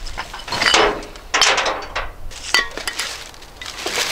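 Plastic garbage bags rustling and crinkling as trash is rummaged through in a dumpster, in several bursts, with scattered clinks and knocks of loose rubbish being shifted.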